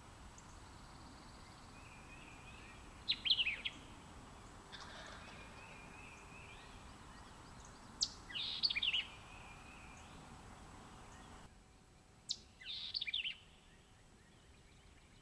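Wild turkey gobbler gobbling three times, a few seconds apart, with faint songbirds behind.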